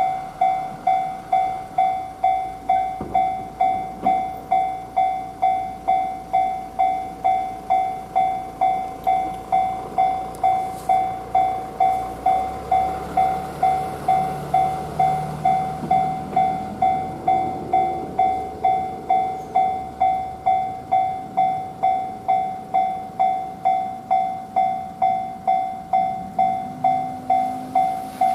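Japanese railway level-crossing alarm bell ringing without stop, one electronic ding repeating about twice a second, with no train coming because every service is cancelled for heavy snow: the owner suspects a crossing fault. A low rumble rises and fades in the middle.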